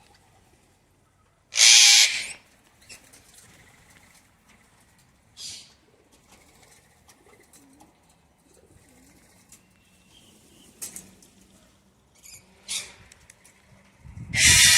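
Wild parrots making loud, harsh squawks, one about two seconds in and another at the end, with shorter calls and wing flaps between.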